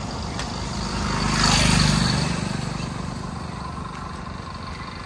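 A road vehicle passing by: its engine and tyre noise swell to a peak about a second and a half in, then fade away.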